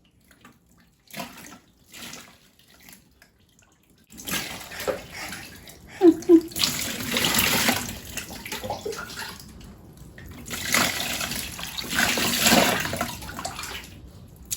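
Water pouring and splashing in a baby's bath, coming in surges after a quiet first few seconds.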